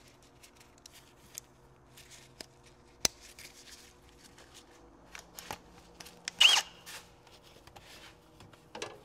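Faint scattered clicks and rustles, with one brief louder scrape carrying a short squeak about six and a half seconds in.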